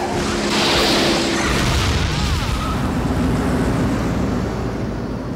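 Cartoon smoke-bomb explosion sound effect: a loud burst about half a second in, then a long rumbling hiss that slowly fades.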